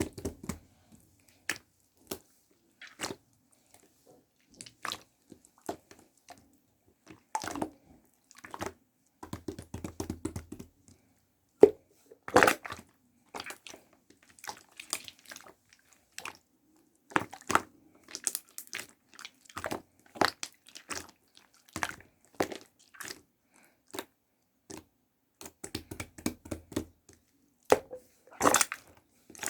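Slime being squished and pressed by hand, giving irregular wet clicks, crackles and small pops as air pockets burst.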